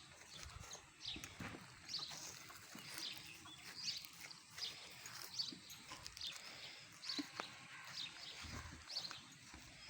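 Small birds chirping, short high calls repeated roughly once a second.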